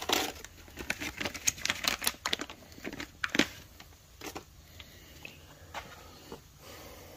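Plastic parts bag crinkling and rustling, with small handling clicks, as a rubber guide-pin boot is taken out. It goes quieter after about three and a half seconds, leaving only a few light clicks.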